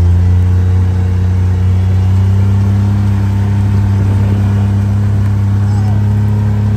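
A vehicle engine running steadily with a low, even drone; its pitch steps up slightly at the start, then holds.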